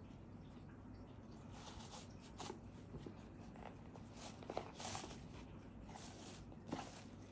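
Faint rustling and brushing of a fabric ribbon being untied and pulled off a cardboard gift box, with a few short, slightly louder rustles about two and a half seconds in, around the middle, and near the end.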